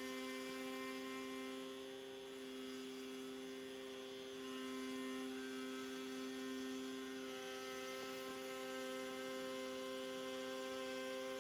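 Steady electric motor hum, several even tones held without a break, with slight shifts in the upper tones about two seconds in and again past the middle.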